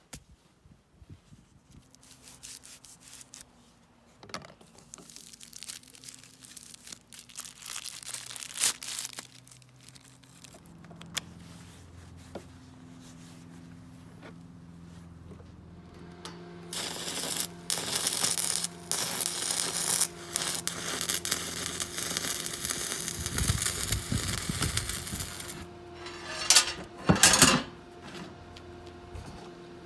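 Workshop handling sounds as welding gear is set out, then a steady low hum from about a third of the way in, typical of an inverter welding machine's cooling fan once it is switched on. A long, loud crackling, rustling stretch fills the middle, with two sharp bangs near the end.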